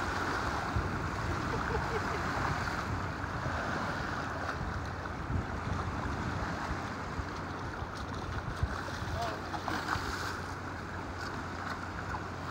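Small lake waves washing against the rocky pier edge, with wind buffeting the microphone.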